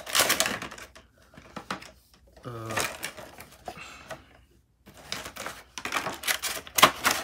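Irregular clicks, taps and rustles of a vinyl Funko Pop figure and its packaging being handled, in clusters with a quieter gap a little past the middle.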